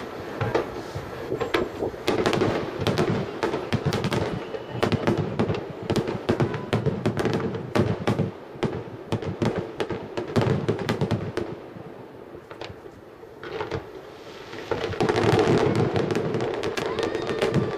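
Aerial fireworks shells bursting in quick succession with crackling. The bangs ease off about twelve seconds in, then come back as a dense barrage.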